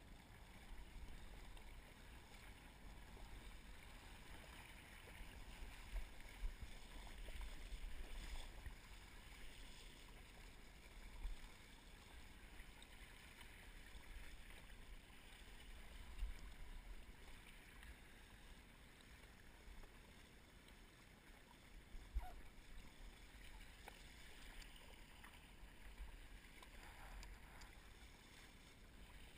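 Faint, muffled rush of water and wind as a windsurf board sails over choppy water, with a low buffeting rumble and a few brief knocks.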